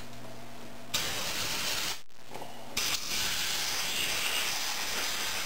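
Compressed-air blow gun blowing into the passages of a Rochester carburetor body to clear out tapping debris. A hiss of about a second comes about a second in, then a longer blast starts near the three-second mark.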